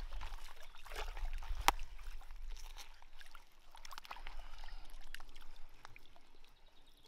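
Water sloshing and trickling, with small knocks and clicks throughout and one sharp click about two seconds in. A low rumble runs under the first couple of seconds, then fades.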